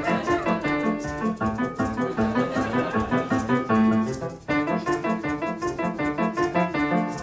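Background music: piano playing quick, evenly pulsed notes, with a short break about four and a half seconds in.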